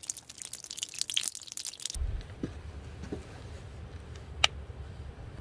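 Scratchy rustling of wet hands rubbed together under the spigot of a plastic water jug for about two seconds. Then a low wind rumble on the microphone, and a single sharp click about four and a half seconds in as the flip-top cap of a squeeze bottle of castile soap snaps open.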